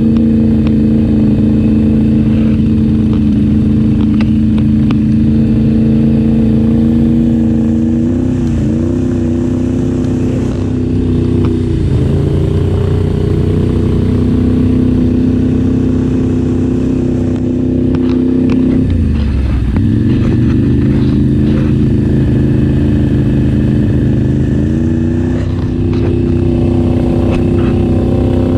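ATV engines running steadily, their pitch dipping and picking back up several times as the throttle changes.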